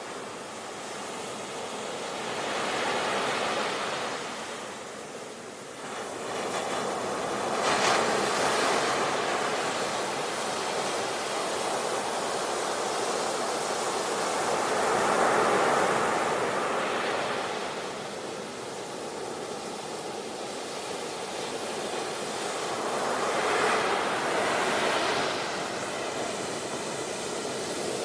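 Ocean surf on a beach: waves breaking and washing in, swelling and falling back every several seconds, with a steady hiss in between.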